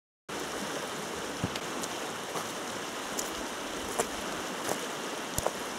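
The Koksa river rushing over shallow rapids, a steady even noise that cuts in just after the start, with a few sharp clicks scattered through it.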